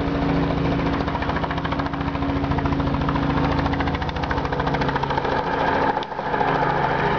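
An engine idling steadily, a low hum with a fast, even pulse, dipping briefly about six seconds in.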